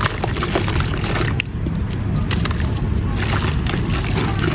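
Crumbles of dried marble powder breaking up in water: a continuous gritty, wet crackle with scattered sharp clicks and sloshing.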